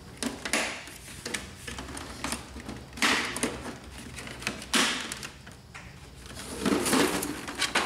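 Plastic paper-support cover of an HP Deskjet 3055A inkjet printer handled and pushed into place on the printer's plastic body: scattered plastic clicks, knocks and scraping, with louder knocks about three and five seconds in and another cluster near the end.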